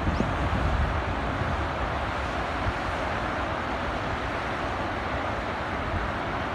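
Steady rushing of a flood-swollen river, with a few low wind thumps on the microphone at the start.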